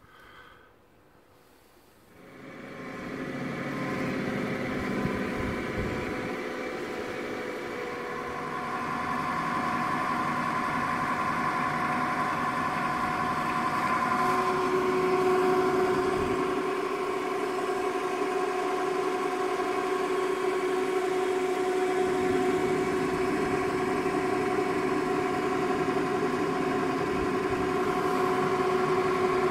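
OMG MB225 double-shaft mixer starting up about two seconds in: its electric gearmotor and spur-gear drive then run steadily with a hum and whine of several steady tones.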